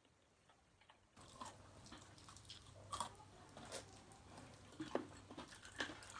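Close-up chewing and lip-smacking while eating fried chicken: scattered small wet clicks and crunches. It starts about a second in, after near silence.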